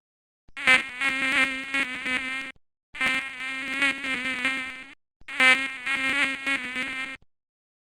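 Mosquito whine, a buzzing wingbeat tone that wavers slightly in pitch, in three bursts of about two seconds each with short gaps between them.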